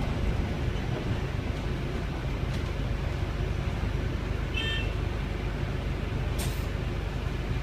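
Volvo B5LH diesel-electric hybrid double-decker running, heard inside the cabin as a steady low rumble. A short high beep sounds about halfway through, and a sharp click a second or so later.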